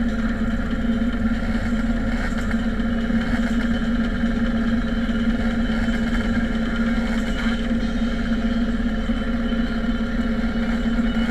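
Motorcycle engines idling steadily, an even hum that holds without revving.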